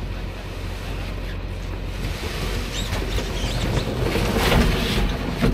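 Water splashing and churning as an inflatable raft slides off a trailer into a river, growing louder in the second half, over a steady rumble of wind on the microphone.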